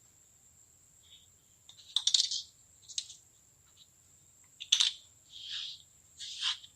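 Kinetic sand being cut: about five short cutting sounds, the first about two seconds in.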